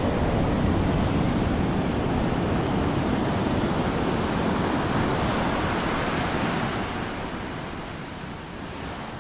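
Rushing wind buffeting the microphone over the wash of sea water, an even noise with no engine note in it, easing off in the last couple of seconds.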